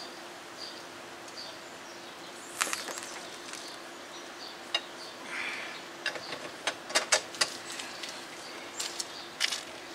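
Metal hand tools clinking, a socket and bar being readied for the axle nut: a scatter of sharp clicks and clinks starting about two and a half seconds in, over faint bird chirps and a steady low hum.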